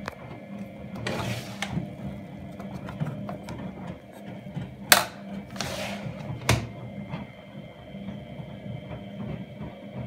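Miele Novotronic W832 front-loading washing machine running its main wash, a steady motor hum with laundry and foamy water turning in the drum. A few sharp knocks stand out over it, the loudest about five seconds in.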